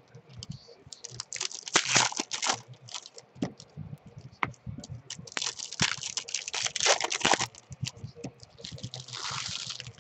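Topps baseball card pack wrappers crinkling and being torn open by hand, in bursts of a second or two, with light clicks and taps of cards being handled between them.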